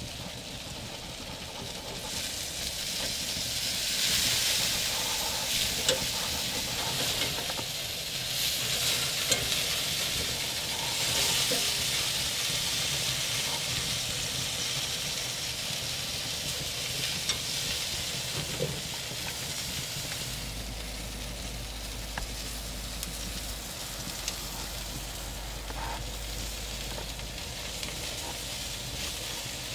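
Sausages sizzling on a hot grill grate over a wood fire, a steady hiss that swells louder twice in the first half, with a few light clicks and crackles scattered through.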